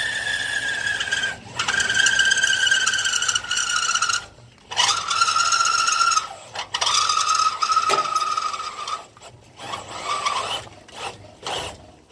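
Electric drill driving a 3/4-inch Champion frame reamer (a stepped bit) through 1/2-inch steel angle iron, cutting in repeated bursts with short pauses. The whine of the drill and the cut is steady within each burst and lower in pitch in the later bursts, as the bit bites harder; the drilling is a little torquey.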